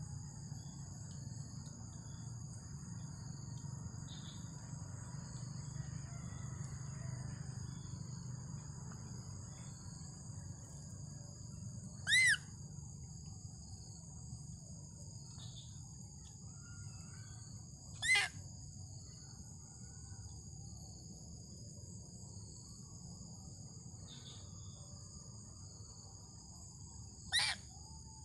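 Steady high-pitched drone of insects, with three short, loud, high-pitched calls that arch up and down in pitch, the second about six seconds after the first and the third about nine seconds later.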